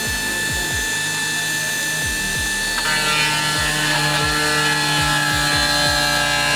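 Background electronic music with a thudding kick-drum beat and sustained chords that change about three seconds in.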